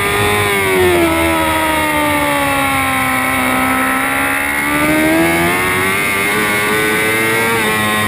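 Moto2 racing motorcycle's 600 cc Honda inline-four engine heard onboard at speed. The revs fall steadily as the bike runs through a corner, then climb again as it accelerates out, with a brief dip near the end.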